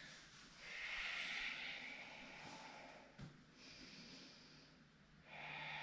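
A woman's slow, deep breathing, faint: about three long airy breaths in and out. A brief small knock about three seconds in.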